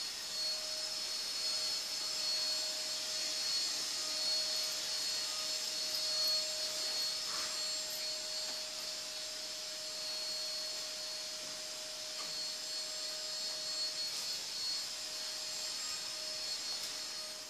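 Steady machine whir with a constant hum and a high thin whine, unchanging throughout, with a few faint ticks.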